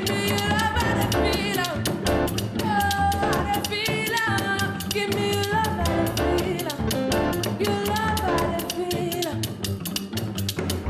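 Live band music: a singer's voice over a fast, steady drum beat, in a Sierra Leonean fusion style built on bubu.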